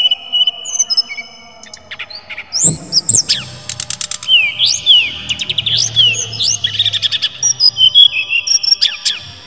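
Brown-chested jungle flycatcher (sikatan rimba dada coklat) singing: a few held clear whistles, then from about two and a half seconds in a fast, varied run of rising sweeps, trills and sharp notes.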